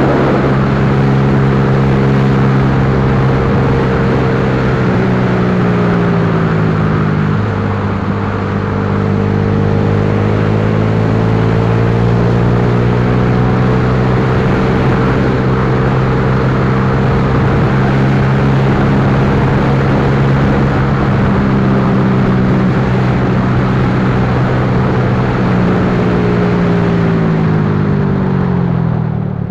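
Yamaha Lagenda 115Fi's single-cylinder four-stroke engine running under way, its pitch rising and falling with the throttle, sliding down about six seconds in and dropping steeply near the end.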